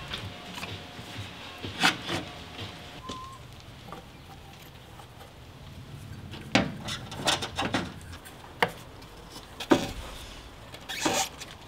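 Irregular knocks, taps and rubbing of a heat shield and a cone air filter being handled and pushed into place around an engine's air intake, with a cluster of knocks about six to eight seconds in and more near the end.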